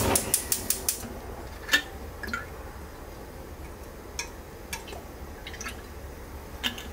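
Oil being poured from a bottle into a nonstick frying pan: a quick run of sharp clicks in the first second, then scattered small ticks and glugs.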